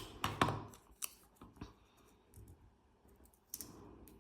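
Small paper pieces being handled and set into place on a paper layout: light taps and clicks with soft paper rustle, the sharpest tap about half a second in.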